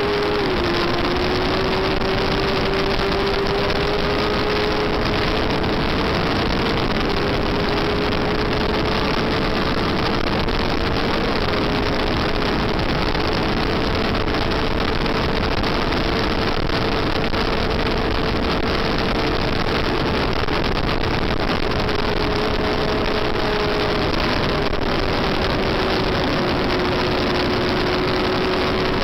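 Yamaha FZR400 race bike's inline-four engine running at high revs, its pitch held nearly steady with a few small dips, under heavy wind rush on the onboard microphone.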